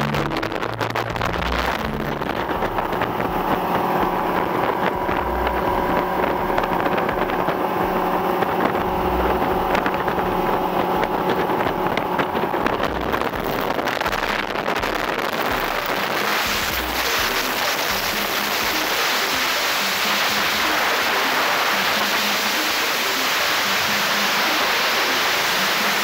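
Motorboat under way: a steady engine hum with wind buffeting the microphone. About halfway through it gives way to a broad, even rushing of wind and water.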